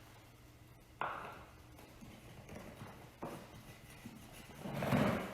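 Shop vac parts being handled during reassembly: a sharp plastic knock about a second in, a smaller one near three seconds, and a louder, longer scrape near the end.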